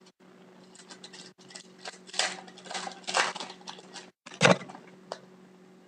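Hockey trading cards being slid and flipped against one another while sorting through a pack: a string of short papery swishes and clicks, with a louder knock about four and a half seconds in, over a faint steady hum.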